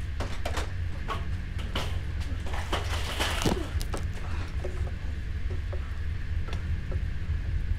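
Film sound design: a steady low rumble with scattered sharp clicks and knocks, and a swell of hissing noise with a short falling sweep about three seconds in.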